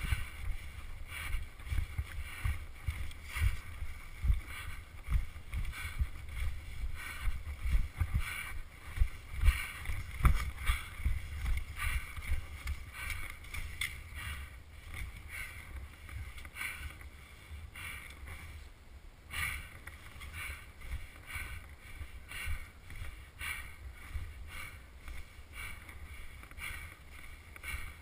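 Footsteps crunching through snow at a steady pace, about one and a half steps a second.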